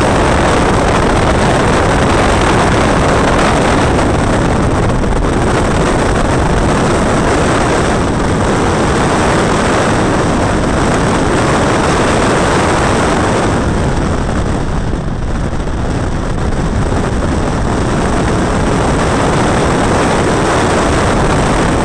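138 bhp Caterham Roadsport's engine running hard at speed, heard from inside the open cockpit with heavy wind noise over the microphone. The sound eases briefly about fourteen seconds in, then builds again.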